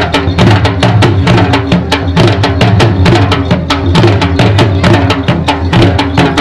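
Attan dance music: dhol drums beating a quick, steady rhythm over a sustained pitched instrument line.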